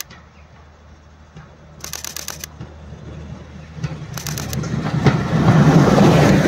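Heritage diesel railcar approaching and passing close by: a steady low engine hum that swells into a loud rumble of engine and wheels on rail from about five seconds in. Two short bursts of rapid clicks, about two and four seconds in, from a camera shutter firing in continuous mode.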